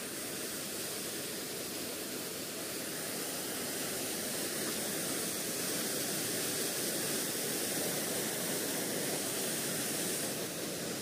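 Water pouring over a river spillway dam: a steady, unbroken rush of falling water.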